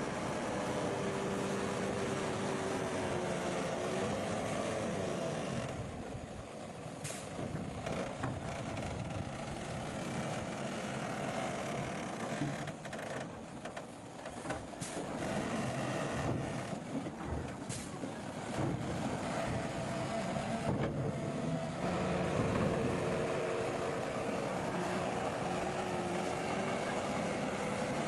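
Heavy diesel machinery or trucks running at a road construction site, a steady engine drone. It eases off from about a quarter of the way in to about three quarters, with a few sharp clicks or knocks, then comes back up to full level.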